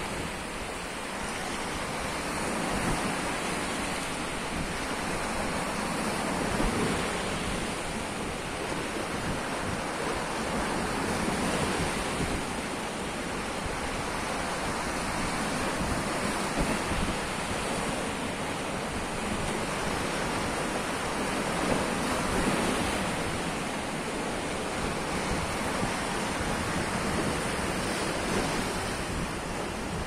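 Sea surf washing over a flat rock shelf and breaking against its edge. It is a continuous wash of water that swells and eases every few seconds.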